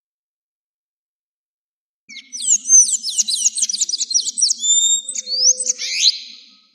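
Azulejo singing a fast song phrase of rapid sweeping notes after a short silence, with a few drawn-out whistles and a closing upward sweep before it fades out.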